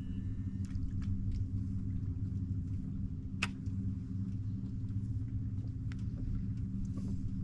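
Boat motor running at a steady idle, a low even hum, with a few sharp clicks and taps over it, the loudest about three and a half seconds in.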